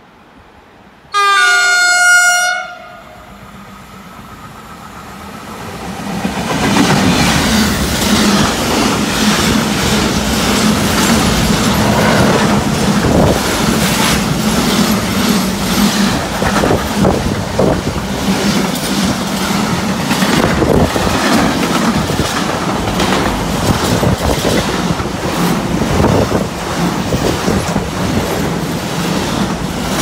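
Freight train's horn sounds one loud blast of about a second and a half, about a second in. Then a long container freight train of flat wagons passes close by with a steady rumble and rattle, and a rapid clicking of wheels over the rails.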